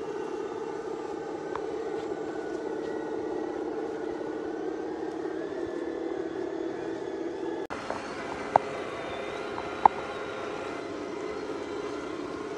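Steady motor and gear whine of RC scale crawlers driving. About two-thirds of the way through the sound cuts briefly, then two short, sharp high blips follow about a second apart.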